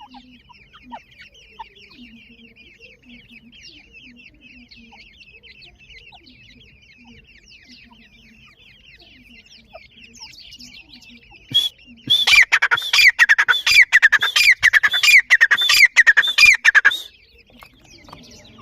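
Grey francolins (teetar) calling. Soft high peeping and low clucking run steadily at first. About twelve seconds in, a loud, rapid series of harsh calls, each falling in pitch, goes on for about five seconds, then stops suddenly.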